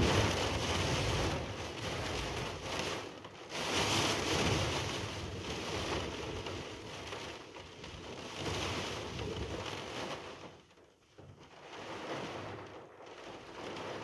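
Strong wind gusting, the noise swelling and falling in waves, with a brief lull near the end.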